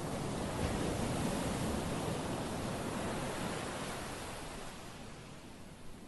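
Sea surf: the even wash of waves on a beach, swelling over the first second or so and then slowly fading away.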